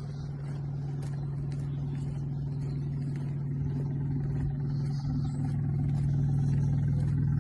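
A steady low engine-like hum from a vehicle drawing closer, growing louder throughout.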